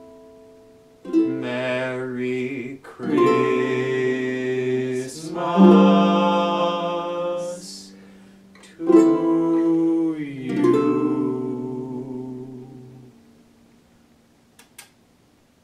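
Ukulele strumming slow closing chords, about five in all, each left to ring, with voices holding long sung notes over them. The last chord fades out about thirteen seconds in.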